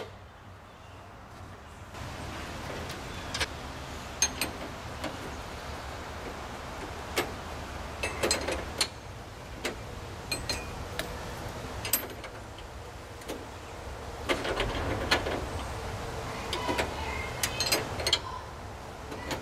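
Hand tools clinking and scraping on metal air-line fittings, irregular taps and clicks with a few busier clusters, over a steady low hum that comes in about two seconds in.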